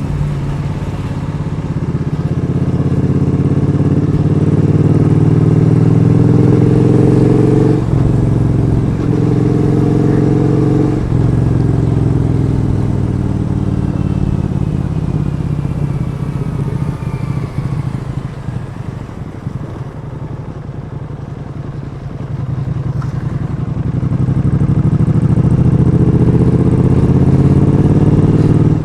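Triumph Street Twin 900's parallel-twin engine under way, pulling up through the gears with two short breaks about eight and eleven seconds in. It eases off and drops in pitch midway, then accelerates again near the end.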